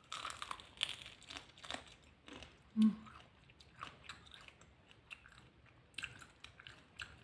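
Close-up crunching bites and chewing of chicken, a run of short crackly crunches throughout.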